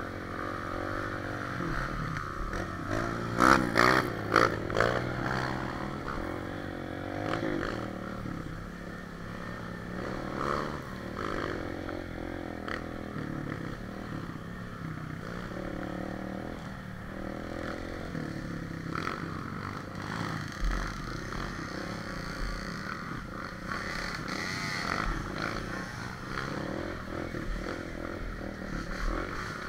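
Trail dirt bike engine running at changing revs as it rides a rough dirt track, with a loud burst of clattering and scraping about three to five seconds in as the bike jolts over the ruts.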